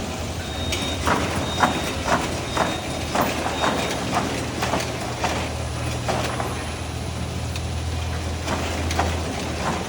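Zorel ZRM36 egg grading and packing machine running: a steady low hum with sharp clicks from its mechanism, about two a second for the first few seconds, then more widely spaced.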